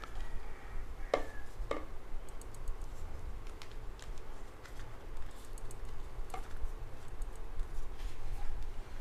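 A plastic case being fitted onto a smartphone by hand: light handling clicks and taps, the two clearest about a second in and just under two seconds in, with fainter ticks after. A low steady hum sits underneath.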